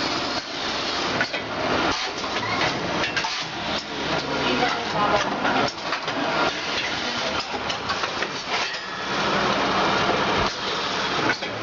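Packaging machinery running: a steady hiss with dense, fast clattering and metallic knocks, and voices underneath.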